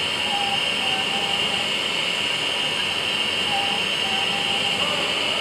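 GZ5 five-axis dental CAD/CAM milling machine cutting a dental arch from a white disc: a steady high whine over a hiss, with short mid-pitched tones coming and going.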